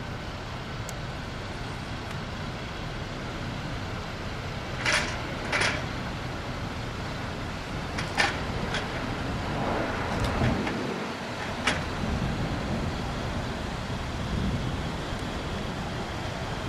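Steady rumble of vehicle noise, broken by several short, sharp knocks between about five and twelve seconds in.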